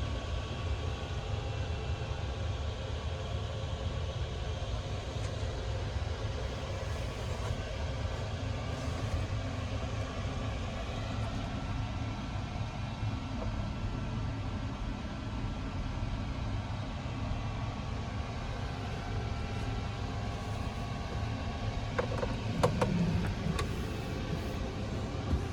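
Steady background noise inside an Airbus A350-900 airliner cabin: a constant low rumble with an even hiss of airflow. A few sharp clicks come near the end.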